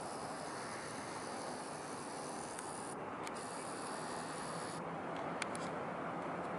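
Steady outdoor background noise of a harbour, an even hiss with no clear single source, with a few faint clicks in the middle.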